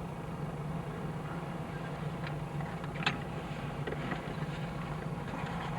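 Vehicle engine idling steadily, a low even hum, with one brief click about three seconds in.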